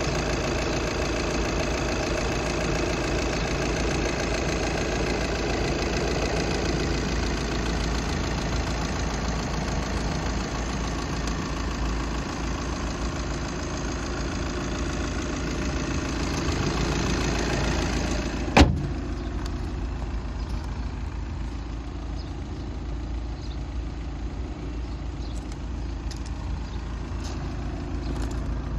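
Audi A3 2.0 TDI four-cylinder diesel engine idling steadily. About two-thirds of the way through there is a single sharp slam, after which the engine goes on quieter and duller.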